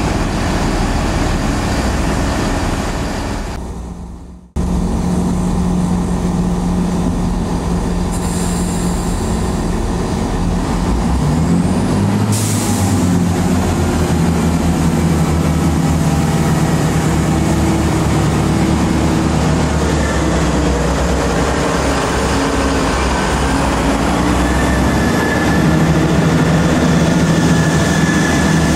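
Great Western Railway Class 166 Turbo diesel multiple unit's underfloor diesel engines running steadily at the platform, with a short hiss of air from the brakes about twelve seconds in. The sound fades and cuts out briefly about four seconds in.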